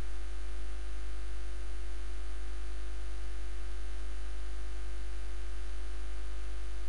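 Steady low electrical mains hum with a faint hiss underneath, unchanging throughout.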